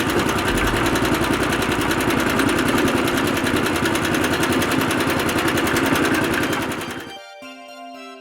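Cement mixer truck sound effect: an engine running with a fast, even mechanical rattle. It cuts off about seven seconds in, and light music follows.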